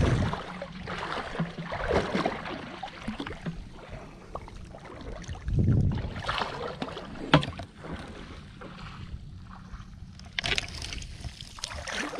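Shallow water sloshing and splashing in several surges as a hand scoop net is pushed through it and lifted out near the end, with one sharp knock partway through.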